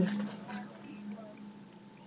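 Quiet room tone with a steady low electrical hum and a faint click about half a second in.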